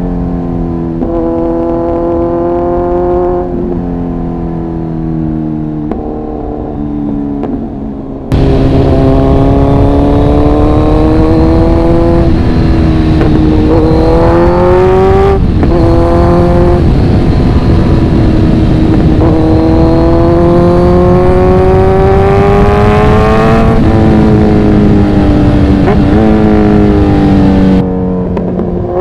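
Kawasaki Z900's inline-four engine and exhaust under way, pulling up through the gears: the pitch climbs steadily and drops back at each upshift, again and again. From about eight seconds in it is much louder, with a rushing noise under the engine.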